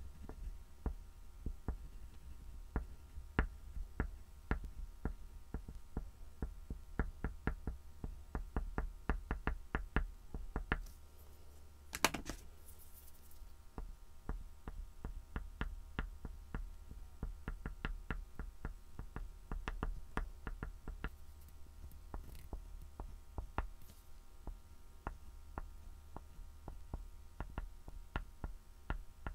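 A soft oil pastel stick drawn in short strokes over a black-painted MDF board: quick, irregular taps and scratches, several a second, with a louder scrape about 12 seconds in. A low steady hum runs underneath.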